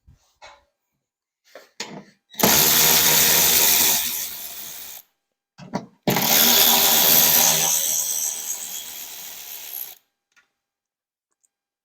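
A drill turning a 4-inch hole saw and cutting through a 3D-printed plastic case, in two runs: one of about two and a half seconds, then a longer one of about four seconds, with a few light clicks before the first.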